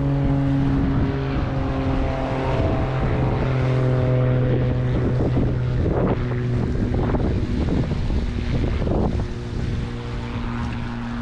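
A boat's engine running steadily under way, its pitch shifting a few times, with wind buffeting the microphone.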